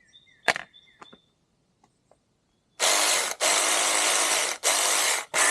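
Saker 6-inch battery mini chainsaw run free in four short trigger bursts, the chain spinning without cutting, just after fresh oil has been dribbled onto it. Each burst starts and stops abruptly. A sharp click comes about half a second in.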